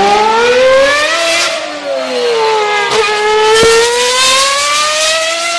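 A motor vehicle's engine revving loudly. Its pitch rises, sinks about halfway through, then rises steadily again.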